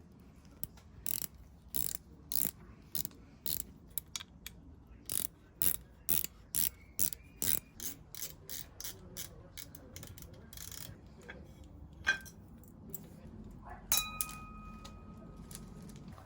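Hand ratchet clicking in an even rhythm, about two clicks a second, as the small 3 mm hex screws of an e-bike motor's underguard are undone. The clicking then slows and turns irregular, and near the end a small metal part clinks and rings briefly.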